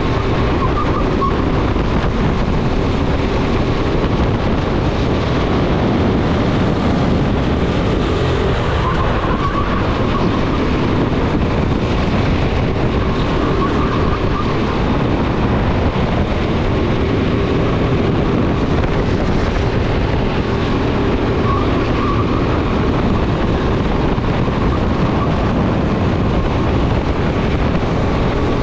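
Racing kart engine on a flying lap, its note rising and falling as the kart brakes for corners and accelerates out of them, under heavy wind noise on the onboard microphone.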